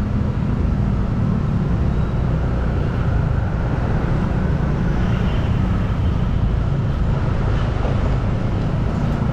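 Steady motor traffic noise: vehicle engines running, a continuous low rumble that does not let up.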